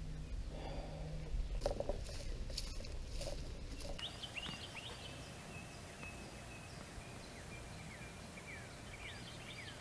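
A few seconds of rustling, then a bird calling in a run of quick descending chirps, repeated many times over a faint steady high tone.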